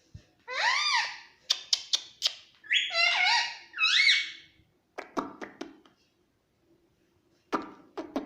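Indian ringneck parrot calling: a few short squawks that rise and fall in pitch, in two groups, between runs of quick sharp clicks.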